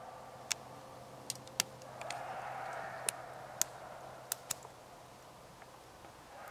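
Campfire embers crackling with scattered sharp pops, over an unidentified rushing sound that swells about two seconds in and then fades.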